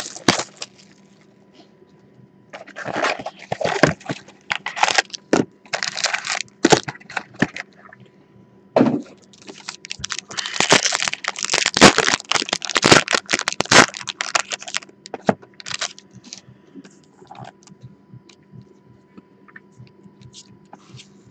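Foil trading-card packs and their wrapping being crinkled and torn open by hand, in several bursts of crackling with a longer stretch in the middle, then quieter card handling near the end.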